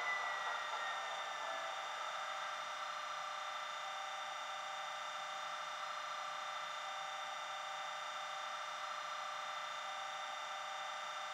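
Bachmann Class 57 model locomotive's DCC sound decoder playing a steady diesel engine idle through its small speakers, with almost no bass. A high whine falls in pitch and fades out in the first two seconds.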